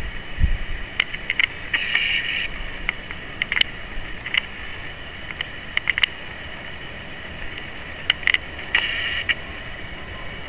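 Camcorder handling and zoom-motor noise: scattered sharp clicks, with two short mechanical whirs about 2 seconds in and near the end.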